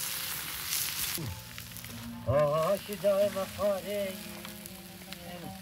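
Meat sizzling on a hot slate slab over a wood fire, strongest in the first second. From about two seconds in, music comes in over it: a wavering melody line above a steady low drone.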